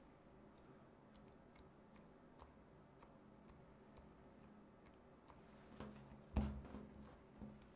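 Faint ticks and taps of fingers working a ring of soft bagel dough on a wooden tabletop, with a brief burst of handling noise and a soft thump about six seconds in as the hands take hold of the dough.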